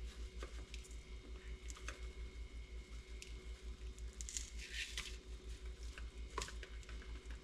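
Faint handling sounds of seasoning a raw red snapper by hand: soft squishing and scattered light ticks, with the loudest brief swish about four to five seconds in, over a steady low hum.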